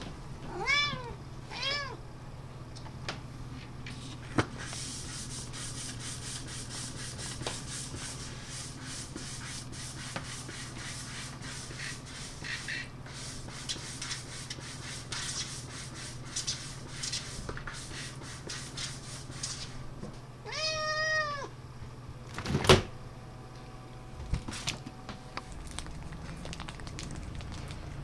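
A calico cat meows twice, then claws at a refrigerator door with a long run of fast scraping strokes for about fifteen seconds, then gives one longer meow. A single sharp knock follows, the loudest sound here.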